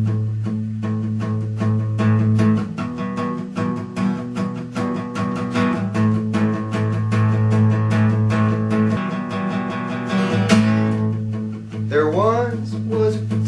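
Acoustic guitar strummed in a quick, even rhythm, playing a song's introduction. A man's singing voice comes in near the end.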